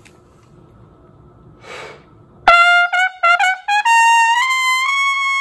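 Solo trumpet: a run of short, quickly tongued notes climbing in pitch about two and a half seconds in, ending on a long held high note.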